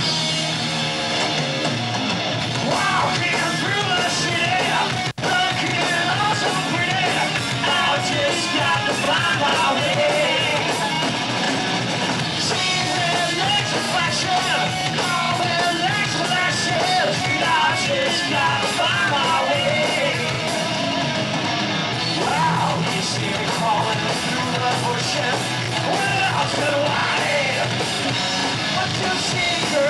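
Live heavy metal band playing loudly, with electric guitar, bass guitar and drums, and a male singer yelling and singing over them from about three seconds in. The sound cuts out for an instant about five seconds in.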